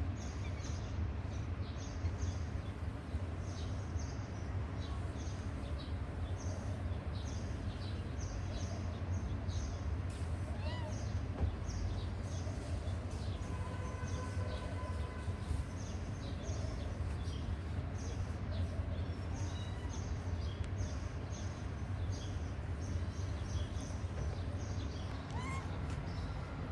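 Outdoor ambience: a steady low rumble under frequent short, high bird chirps.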